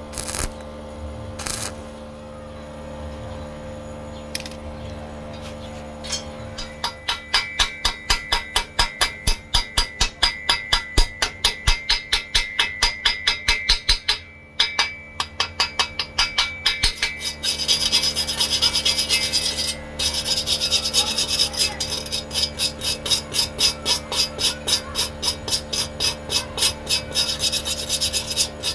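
Rhythmic rasping strokes of a hand tool worked back and forth on metal, filing, brushing or sawing, about three strokes a second. They start a few seconds in and turn brighter and hissier about halfway through.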